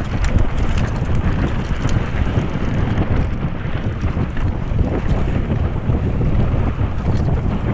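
Wind rushing over the microphone of a camera on a mountain bike descending at speed, mixed with the tyres on a loose dirt and gravel trail and scattered small clicks and rattles from the bike.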